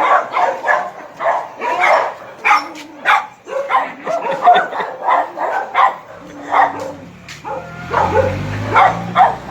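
A dog barking over and over, about two to three short barks a second. A low steady hum comes in about two-thirds of the way through.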